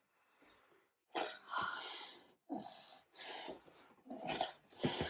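A young child's short, breathy vocal noises, a run of irregular huffs and cough-like bursts starting about a second in.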